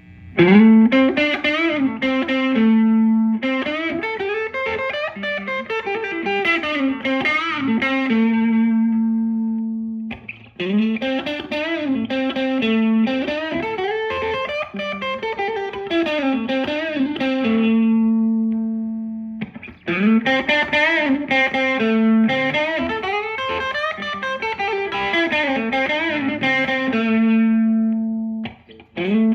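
Electric guitar, a Fender Stratocaster, playing the same lead phrase three times with mild overdrive. Each phrase opens with a rising string bend, runs through quick notes and ends on a long held note that rings out.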